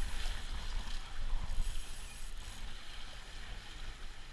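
Wind buffeting a cap-mounted camera's microphone over the steady wash of sea surf against rocks.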